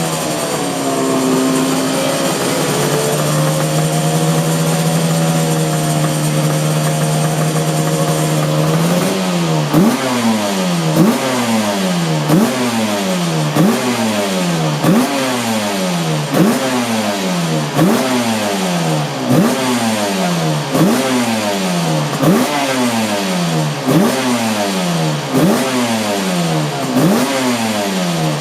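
Cagiva V589 two-stroke V4 Grand Prix racing engine running at a steady, fast idle for about nine seconds. It is then blipped over and over, each rev rising sharply and falling back, about one every second and a half.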